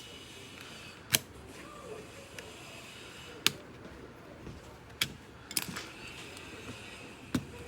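Five sharp, hard clicks or taps, a second or more apart, from small tools knocking against the phone or the bench during the repair, over a faint steady background.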